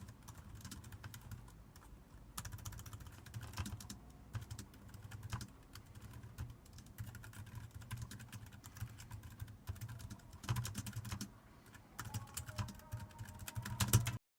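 Typing on a computer keyboard: a run of irregular key clicks with short pauses. The clicks stop abruptly just before the end.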